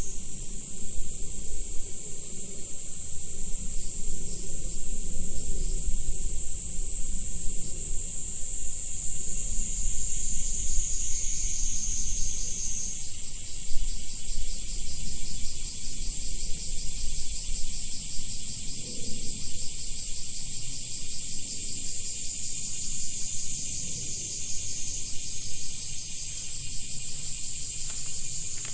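A dense, steady chorus of insects trilling high-pitched, with a second, slightly lower trill stopping about thirteen seconds in. A low rumble runs underneath.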